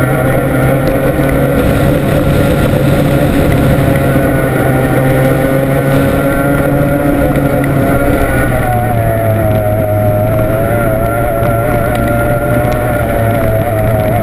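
Formula 1 tunnel boat's outboard racing engine running flat out, heard on board with wind noise. The engine note drops slightly about eight seconds in, then holds with a slight waver.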